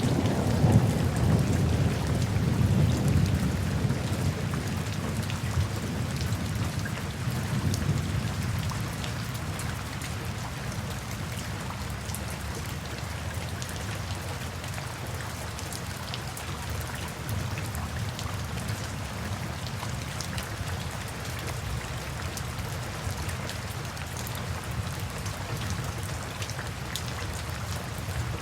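Steady rain falling, with scattered drops pattering. A low rumble of thunder rolls through the first several seconds and fades away, leaving just the rain.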